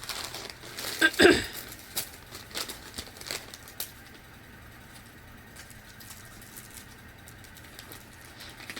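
Plastic snack packaging crinkling and clicking in short bursts as it is handled, with one brief louder sound about a second in. The rest is low room noise.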